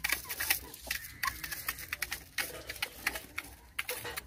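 Country chickens pecking grain from a steel plate and the concrete, a rapid irregular clicking, with a few calls from the flock.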